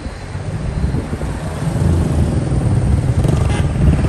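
Motorcycle engine running close by, getting louder about a second and a half in, over the low rumble of street traffic.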